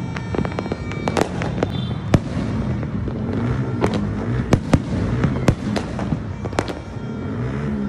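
Many fireworks and firecrackers going off at once: a dense, irregular string of sharp bangs and crackles, several a second at times, over a steady low din.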